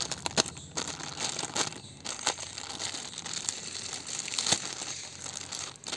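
Clear plastic polybag crinkling and crackling as it is handled and pulled open by hand, with a sharper snap about half a second in and another about four and a half seconds in.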